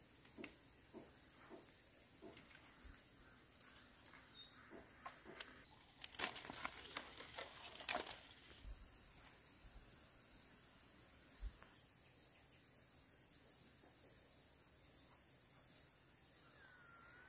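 Faint rural background: a steady high insect trill that drops out for a few seconds in the middle, with scattered soft ticks and a short burst of rustling about six seconds in.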